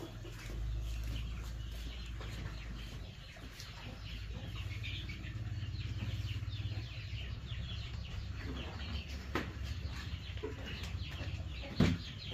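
Chickens clucking over a steady low hum, with a sharp knock near the end.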